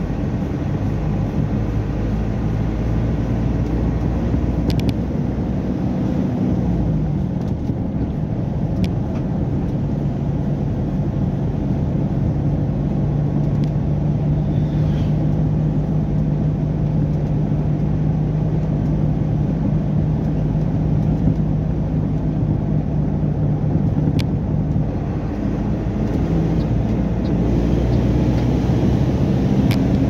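Heavy truck's diesel engine droning steadily under load, heard from inside the cab over tyre and road noise. Its pitch drops about seven seconds in, then holds steady and changes again near the end.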